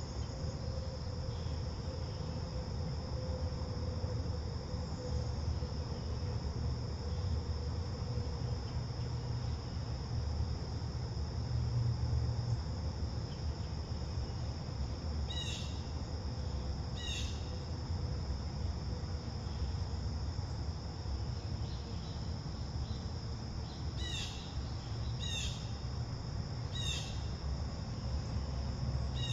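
Steady chorus of crickets, a continuous high trill, with a low rumble underneath. Midway a bird gives two short descending call notes, and near the end three more.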